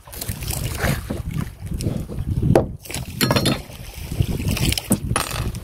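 Water sloshing and lapping against a small outrigger boat drifting at sea, with wind buffeting the microphone and a few short knocks.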